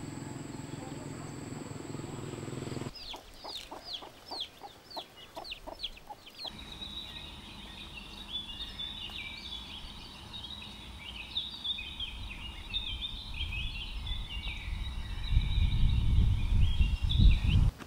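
Birds calling: first a run of about nine quick falling chirps, then a long jumble of high chirping song over a steady high tone. A steady background noise comes before the chirps, and a low rumble, the loudest sound, builds near the end.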